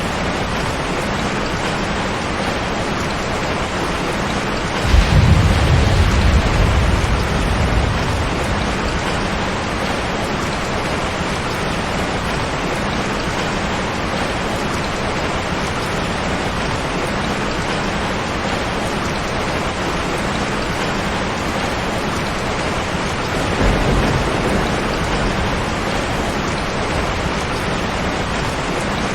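Heavy rain falling steadily on a tin roof. A low thunder rumble starts suddenly about five seconds in and fades over a few seconds, and a weaker rumble follows near the end.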